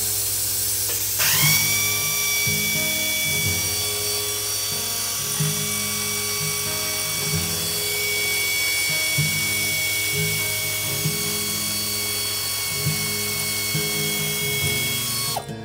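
A shop air compressor starts about a second in, its whine rising briefly, then runs steadily with a high whine and hiss. Background music plays underneath.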